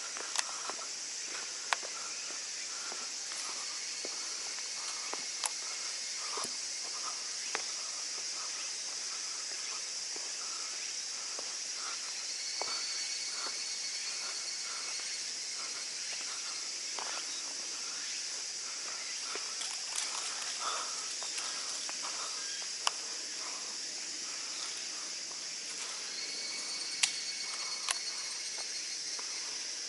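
A steady, high, hissing chorus of insects on a summer evening, with scattered small clicks and taps. Twice a brief higher call rises above the chorus.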